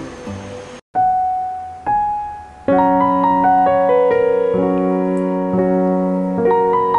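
Background piano music: after a short break just under a second in, two single notes ring out, then sustained chords play on.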